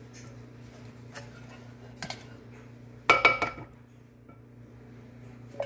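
Metal saucepan being scraped out with a silicone spatula: a few light knocks, then a loud clatter of the pan with a brief metallic ring about three seconds in, and more light knocks near the end, over a steady low hum.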